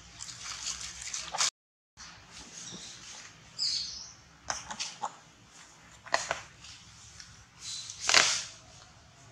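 Scattered rustles and light scuffs, with a brief high-pitched chirp a little before the middle and a louder rustling burst near the end. The sound cuts out completely for about half a second near the start.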